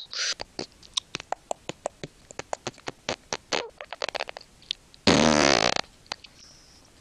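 A run of quick, irregular clicks or taps, then about five seconds in a loud, low buzzing blurt lasting under a second.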